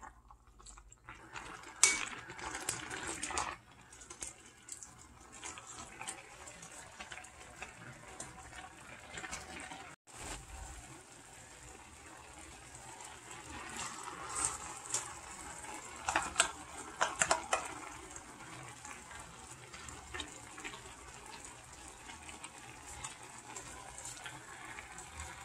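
Kitchen water sounds: water running and splashing, with clusters of sharp clinks about two seconds in and again around sixteen to seventeen seconds in.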